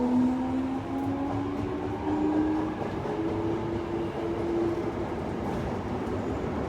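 Toei Asakusa Line 5300 series electric train accelerating: the traction motors whine, rising slowly in pitch over the rumble of the running gear. The whine fades out about five seconds in.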